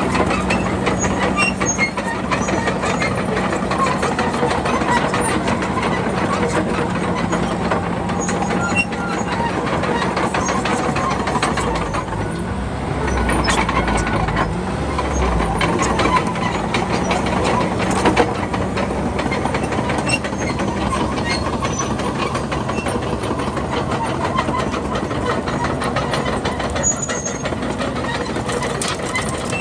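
Komatsu D31PX bulldozer's diesel engine running steadily, with the metallic clatter of its tracks. The engine note dips briefly about halfway through, under a deep rumble and a few sharp cracks.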